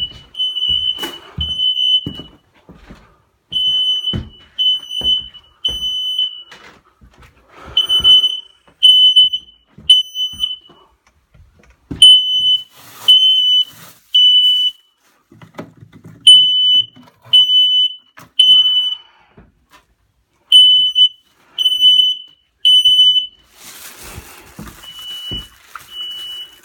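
Household smoke alarm going off: a loud, shrill beep sounding in groups of three with a pause after each group, the temporal-three alarm pattern, repeating about every four seconds. Scattered knocks and handling noises sound between the beeps.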